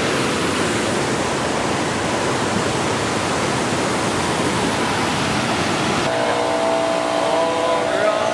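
Creek cascade running over rock, a steady rushing of falling water. About six seconds in, a few held tones come in over it.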